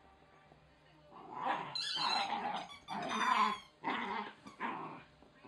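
Wire Fox Terrier puppy play-growling in a string of rough bursts that start about a second in.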